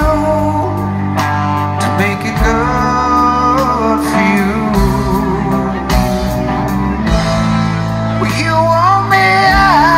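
Live rock band performing: a male lead singer holding long, wavering notes over electric guitar, bass and drums.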